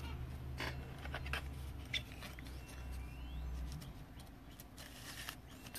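Light handling sounds of a trading card and its foil pack wrapper: scattered small clicks, taps and crinkles as the card is moved and slipped into a plastic holder. A low hum runs underneath and stops about four seconds in.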